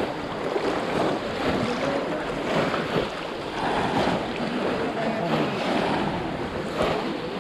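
Muddy pond water splashing and sloshing as several people wade through it waist-deep and sweep hand nets, with scattered voices mixed in.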